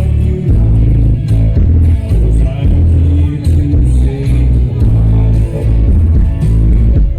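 Loud dance music with heavy bass and a singing voice, played over a sound system.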